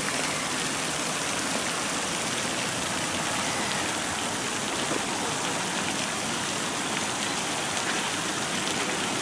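Steady hiss of heavy rain falling on a pond's surface.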